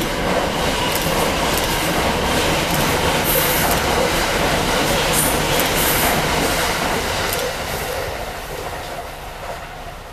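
Hakutaka limited express electric train passing at speed, a steady rush of wheels on rails that holds for several seconds and then fades over the last two seconds as the train goes by.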